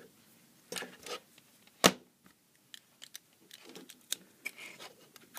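Handling noises: a sharp plastic click about two seconds in, then scattered light clicks and rustles as USB plugs and a USB current tester are fitted to a power bank. No motor is running.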